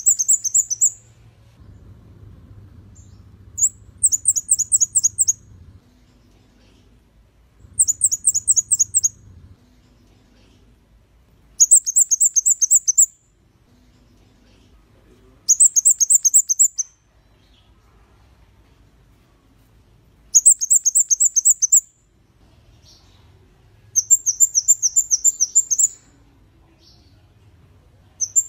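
Scarlet-backed flowerpecker singing: short phrases of rapid, high, thin ticking notes, each about a second and a half long, repeated about every four seconds.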